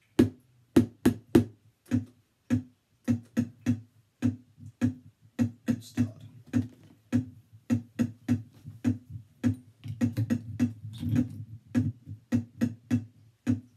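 Handheld microphone struck on its side against a plastic lid, giving boomy knocks in a repeating samba rhythm of about two to three hits a second, recorded and looped on a loop pedal.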